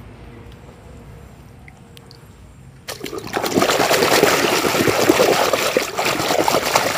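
A hand splashing and scrubbing a mud-covered plastic toy train in water, churning it vigorously. The splashing starts suddenly about three seconds in, after a quiet start.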